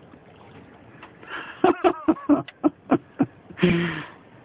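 A person laughing in a quick run of short bursts, about four a second, ending in one longer drawn-out voiced sound near the end.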